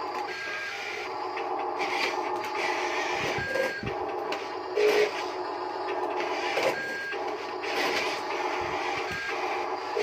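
Small electric motors of a radio-controlled toy construction vehicle whining steadily, broken a few times by short electronic beeps.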